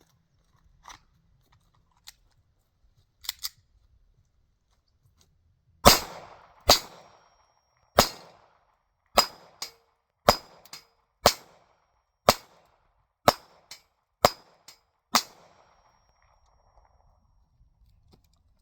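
SIG Sauer P320 pistol firing a string of about ten shots, roughly one a second, with a few fainter shots in between. A few small handling clicks come before the first shot, which is about six seconds in.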